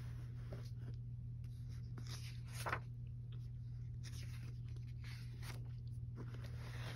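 Paper pages of a colouring book being handled and turned, rustling and sliding in several short swishes, the loudest about two and a half seconds in, over a steady low hum.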